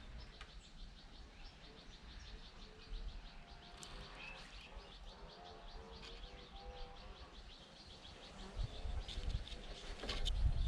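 Birds chirping in the background: a fast, steady run of faint high chirps. A few knocks and rustling handling noise grow louder near the end.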